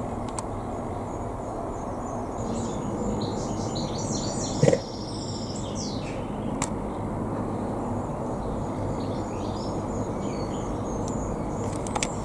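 Small birds chirping over a steady low background rumble, with one sharp knock a little under five seconds in.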